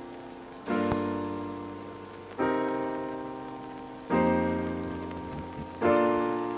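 Background music: slow piano chords, four in all, each struck about every second and a half and left to ring and fade.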